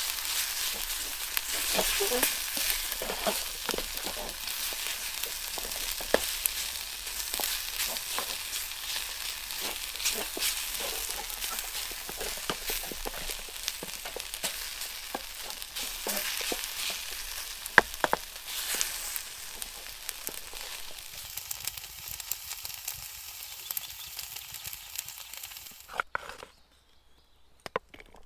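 Straight-to-wok noodles sizzling as they fry in a pan, with scattered sharp clicks of a utensil stirring them. The sizzle cuts off suddenly near the end.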